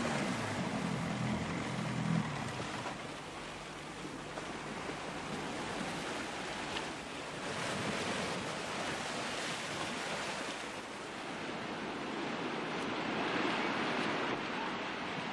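Surf breaking and washing up a sandy beach, the rush swelling and easing every few seconds. A low hum is heard in the first two seconds.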